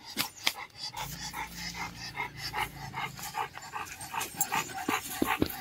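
American bully dog panting fast and hard in a steady, even rhythm.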